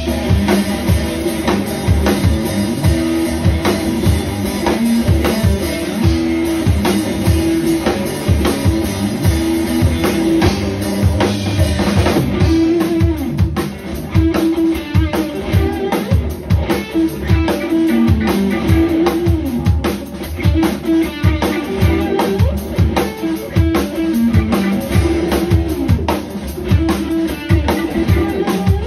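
Live instrumental rock trio playing: drum kit, electric guitar and keyboard together, with no vocals.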